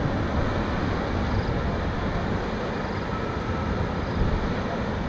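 Steady rushing noise of fast-flowing river water.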